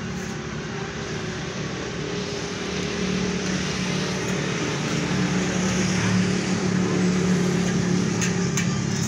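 An engine running steadily with a low, even hum, growing gradually louder.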